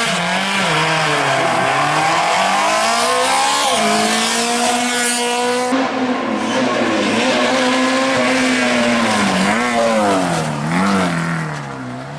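Rally car engines at high revs: first a small hatchback rally car pulling hard through a hairpin, its engine note rising and dropping with throttle and gear changes. After a cut about six seconds in, a Mitsubishi Lancer Evolution rally car accelerates out of a bend, revving up and dropping pitch at each gear change.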